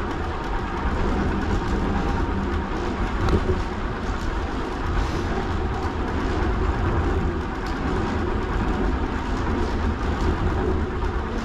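Steady rumbling road noise of a bicycle rolling along a path, heaviest in the low end.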